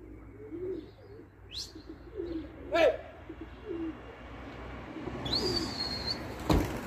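Domestic pigeons cooing, with low coos repeated throughout. A few short high chirps come in among them, and near the end there is a high, steady whistle about a second long.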